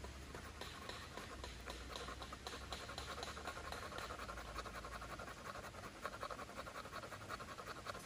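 Knife blade scraping a stick of fatwood (resin-hardened pine) in quick, even rasping strokes, shaving it into fine powder as fire-starting tinder. The scraping starts about half a second in.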